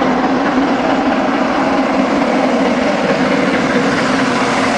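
Steam locomotive approaching at speed on a main line, a loud steady rushing noise of the engine working and its train on the rails.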